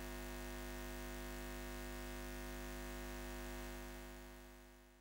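Steady electric hum with hiss, the buzz of a neon sign used as a sound effect, fading away near the end.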